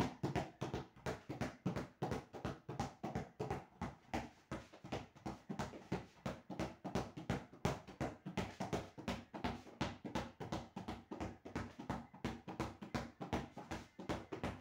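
A football bounced on a hard floor by hand, basketball-style dribbling, in a steady unbroken rhythm of sharp bounces. There is a small room's echo on each bounce.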